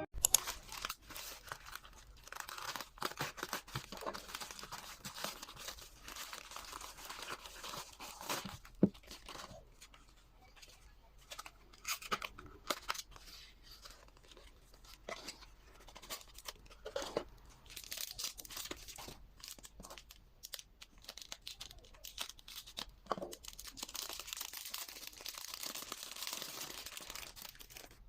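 Packaging being torn open and crinkled by hand: irregular tearing and rustling with occasional sharp clicks, busiest at the start and again near the end, with quieter pauses in between.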